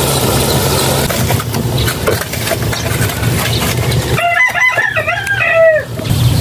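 A rooster crowing once about four seconds in: a single crow of a few linked, bending notes lasting under two seconds.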